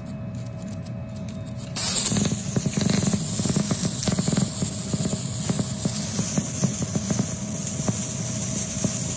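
High-voltage plasma arc between two carbon rods, struck about two seconds in and then burning as a hissing, crackling flame. A thin steady whine runs underneath.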